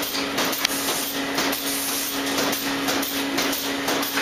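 Milking parlour machinery running: a steady hum from the vacuum system under a fast, uneven run of short hissing pulses from the milking units' pulsators.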